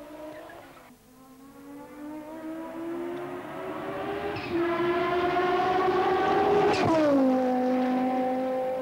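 Audi 90 quattro IMSA GTO race car's turbocharged five-cylinder engine running on track: it fades briefly, then climbs steadily in pitch under acceleration, falls abruptly in pitch about seven seconds in and holds a steady note.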